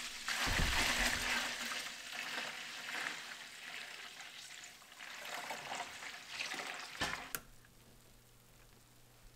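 Hot, nearly finished maple syrup poured from a stainless saucepan into a tall metal stockpot, a steady splashing pour that thins out over about seven seconds. A sharp clack follows, then only a faint low hum.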